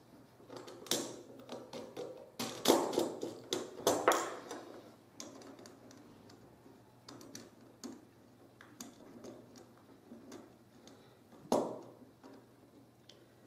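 Steel grill rods and tubes tapping and clinking as they are fitted together by hand, with small metal parts such as a nut being handled. Irregular taps and knocks, the sharpest a few seconds in and again near the end, with lighter ticks between.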